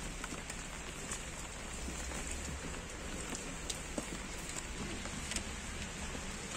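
Steady outdoor background hiss with scattered faint ticks, no speech.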